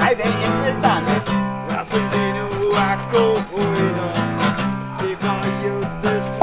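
Music with a strummed acoustic guitar and a steady beat.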